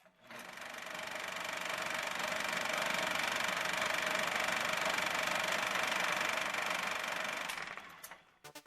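A motor running steadily with a thin whine, swelling in over the first couple of seconds and dying away near the end.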